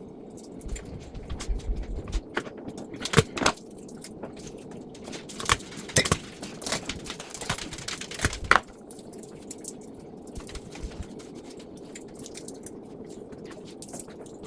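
Kitchen handling sounds: a run of scattered sharp clicks and knocks, as of objects set down and handled on a counter, which stop about two-thirds of the way through. After that only a steady low background hum remains.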